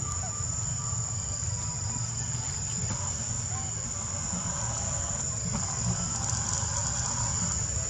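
Steady high-pitched insect drone, crickets or cicadas, holding one unbroken tone over a low rumble.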